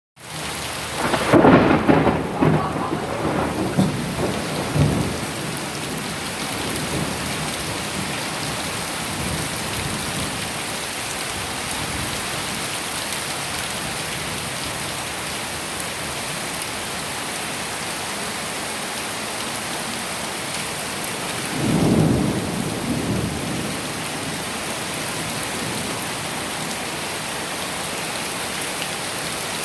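Steady rain falling through a thunderstorm, with two rolls of thunder: a long, loud one starting about a second in and lasting several seconds, and a shorter one about three-quarters of the way through.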